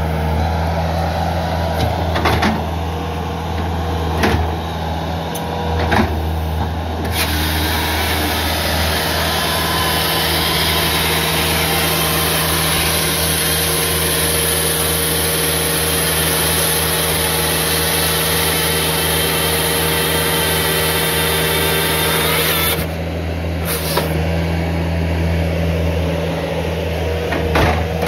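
Skid steer engine running steadily while its grapple saw attachment handles a log, with a few knocks. About a quarter of the way in, the hydraulic chain saw bar starts cutting a firewood round off the log with a loud, even high-pitched rasp. It stops abruptly about four-fifths through, followed by a couple more knocks as the round drops.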